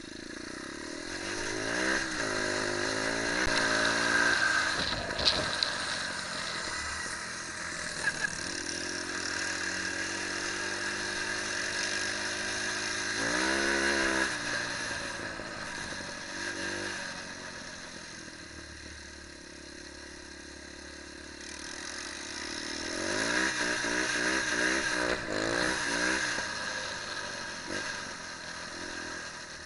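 Small off-road motorcycle engine being ridden hard, revving up and easing off over and over, its pitch climbing in quick steps as it is throttled through the gears. There are a few sharp knocks about five and eight seconds in.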